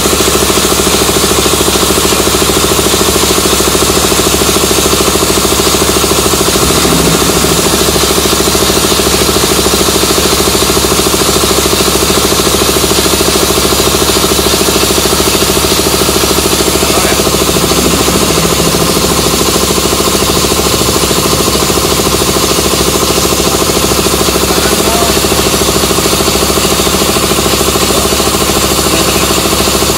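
Gihon E-04 piston air compressor, driven by an electric motor of about 2.2 kW, running steadily and loudly.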